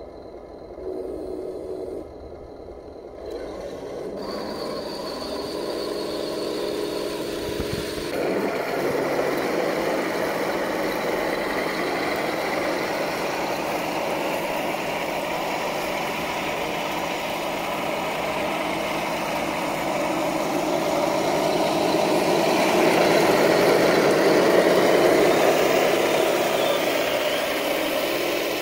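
Heng Long Leopard 2A6 RC tank with metal upgrades: its sound unit gives a steady engine hum, then the tank drives off over dirt and its drive motors and tracks run with a dense, continuous mechanical noise. The noise grows loudest about three-quarters of the way through.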